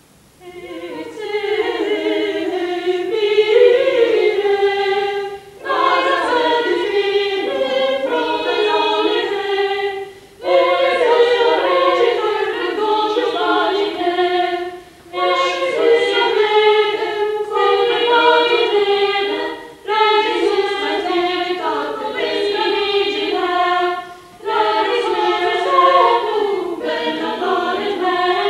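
Choir singing a cappella in six phrases of about four to five seconds each, with brief breaks between them for breath.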